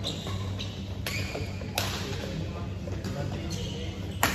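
Badminton rally: sharp racket strikes on a shuttlecock, three in all with the loudest near the end, and short squeaks of shoes on the court floor, over a steady low hum.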